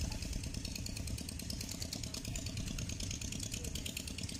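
A steady engine-like drone, as of a motor running, with a fast high-pitched ticking over it.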